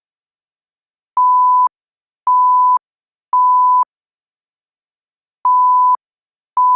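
Electronic alert beeps from a mock Emergency Alert System broadcast: steady single-pitch tones about half a second long, three in a row about a second apart, then after a short pause another run of beeps begins.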